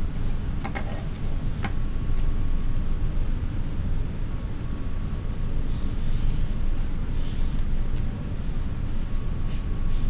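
Steady low rumble of background noise, with two light taps about a second in, and a felt-tip Sharpie marker scratching across paper in two short strokes around six and seven seconds in.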